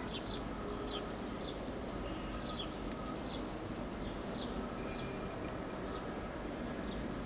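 Small birds chirping, short high downward chirps repeated about once or twice a second, over a steady low rushing noise.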